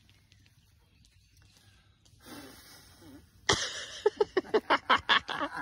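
Birthday candles being blown out: a soft breathy puff, then a strong blow about three and a half seconds in, followed by a quick run of about ten short, sharp sounds over a second and a half.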